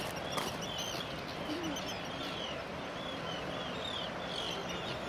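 A flock of Arctic terns calling over and over, many short arching calls overlapping, over a steady rush of noise from the fast-moving water.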